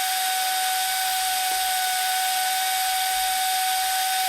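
Air compressor running steadily for a laser cutter's air assist: a constant motor whine over the hiss of air rushing through the line.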